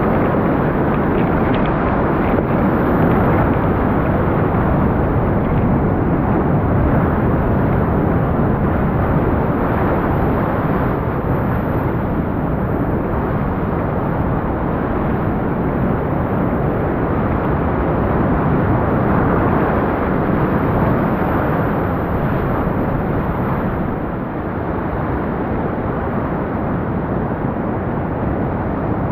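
Whitewater rapids rushing around a rowed inflatable raft: a loud, steady wash of churning water, a little quieter over the last few seconds.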